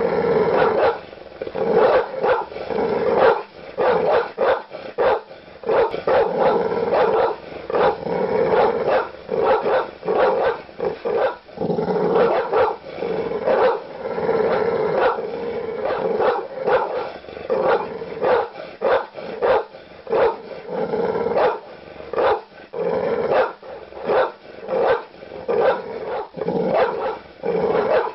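Large dog barking aggressively, deep woofs in rapid, almost unbroken runs of several barks a second.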